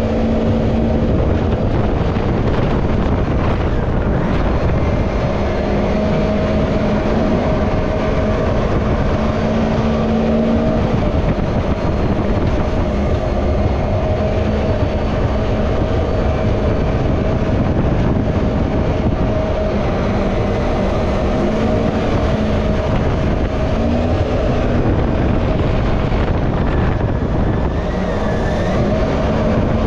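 Mini jet boat's 1053cc Yamaha four-stroke engine running steadily at speed, with water rushing along the aluminum hull. The engine note shifts slightly now and then.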